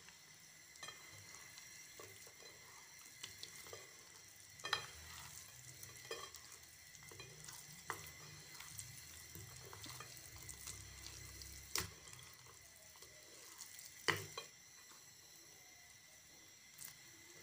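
Hands mixing marinated fish pieces with gram flour and lemon juice in a glass bowl: faint wet squelching and rustling with scattered small clicks, and a few louder taps about five, twelve and fourteen seconds in.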